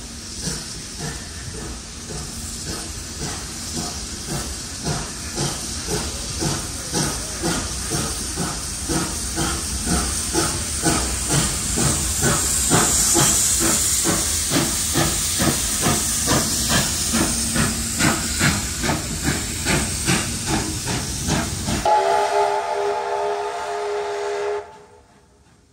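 Steam locomotive working past with a regular exhaust beat, about two chuffs a second, over hissing steam. Near the end a steam whistle sounds for about three seconds, then cuts off suddenly.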